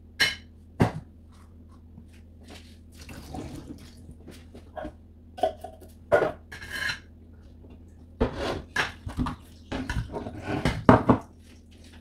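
Knocks and clatter of tins, a can opener and a plastic bowl being handled and set down on a kitchen counter, over a low steady hum. Two sharp knocks come right at the start, and the clatter grows busier in the last few seconds.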